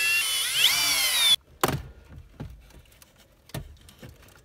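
Cordless drill/driver backing out a Phillips screw from the factory radio's mount, its motor whine rising and falling in pitch and then cutting off suddenly about a second and a half in. A few plastic knocks and clicks follow as the radio unit is pulled loose from the dash.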